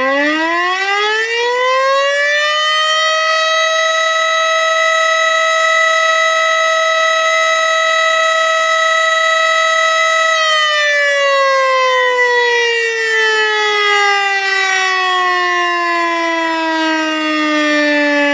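Tornado warning siren winding up over the first three seconds to a steady wail, holding it, then slowly winding down in pitch from about ten seconds in. A separate steady high tone sounds alongside it throughout.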